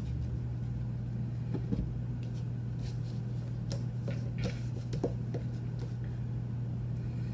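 Tarot cards being slid and laid down on a table, giving scattered light clicks and soft brushes, over a steady low background hum.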